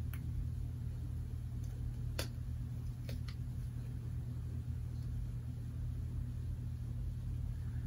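A steady low room hum, with a few faint clicks as a small foundation bottle and its pull-out label are handled.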